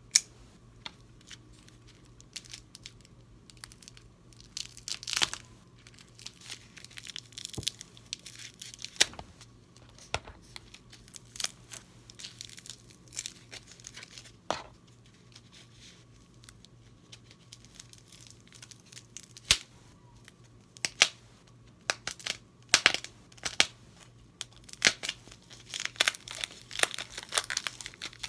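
Packaging being unwrapped by hand: irregular crinkling and tearing with sharp clicks, in busy bursts that come and go.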